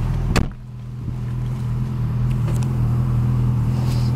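Engine idling steadily, heard from inside a car, with a single sharp thump about half a second in, after which the sound is briefly quieter.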